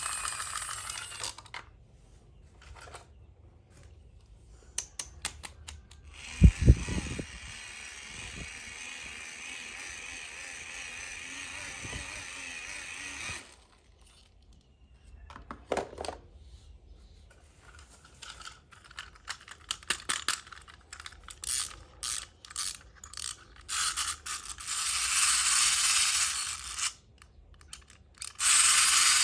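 Small plastic toy play-set pieces being handled, with scattered clicks, taps and snaps and one loud knock about six and a half seconds in. Stretches of steady hiss come between them.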